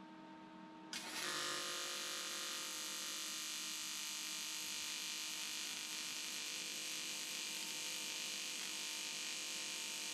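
TIG welding arc on aluminium, struck about a second in and then burning steadily with an even buzzing hiss as the aluminium lugs are welded to the plate.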